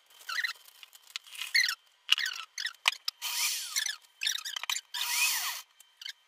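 A small electric food processor runs in two short bursts, about three and five seconds in, its motor pitch sliding as it grinds graham crackers into crumbs. Earlier come shorter rattling and rustling handling noises.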